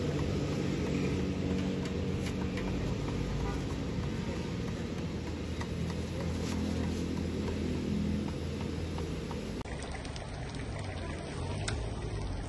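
Street traffic: motorbike and car engines running close by in a steady low hum, with a few faint knocks. About ten seconds in the sound changes abruptly to a quieter mix with a few sharp clicks.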